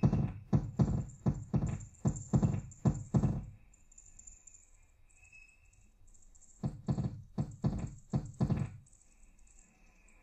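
Contemporary music for string trio and electronics: two quick runs of sharp, amplified knocks, about three a second, the first for about three seconds and the second, shorter, a few seconds later, over a faint high hiss and a thin steady tone.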